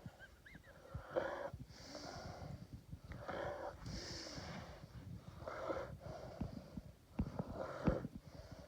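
Saint Bernard snoring in its sleep, breath after breath at roughly one a second, with a couple of louder catches near the end.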